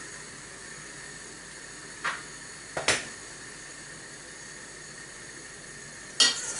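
Steady hiss of steam rising through a stainless-steel colander of broccoli over a boiling pot on a lit gas burner. A fork clinks against the metal colander three times: two close together a couple of seconds in, and a louder one near the end.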